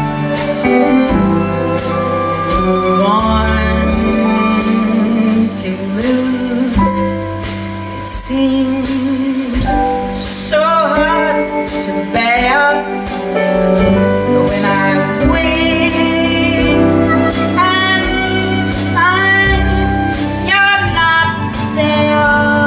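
Live band music: a slow ballad with a woman's voice singing over the accompaniment.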